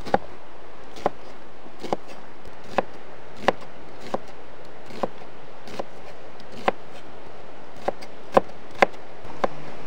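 A knife chopping food on a wooden cutting board in slow, uneven single strokes, roughly one a second, with the last few strokes louder.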